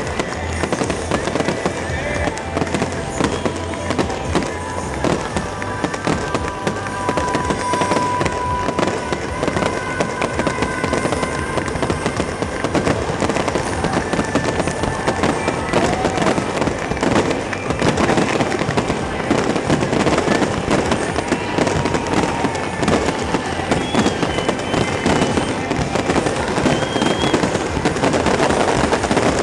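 Fireworks display: shells bursting in a rapid, continuous barrage of bangs and crackling.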